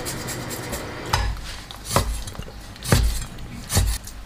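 Kitchen knife cutting pork belly into small pieces on a cutting board, the blade knocking on the board four times about a second apart.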